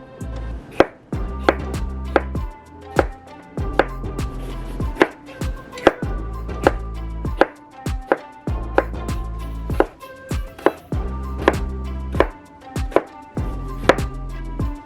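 A knife chopping on a cutting board in separate strokes, roughly one every second, over background music with a bass line.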